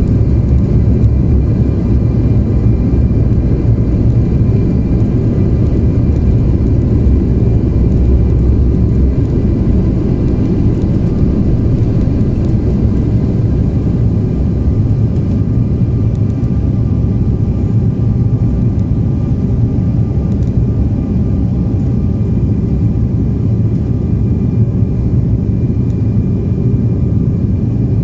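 Cabin noise of an Embraer 190 on its takeoff roll and climb-out: its two GE CF34-10E turbofans at takeoff thrust, a loud steady low rumble with faint steady whine tones above it, heard from inside the cabin.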